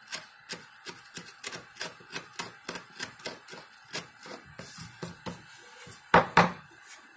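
A hand-held blade trimming the frayed cut end of a wooden board in short strokes, about three clicks a second. Two loud knocks follow about six seconds in.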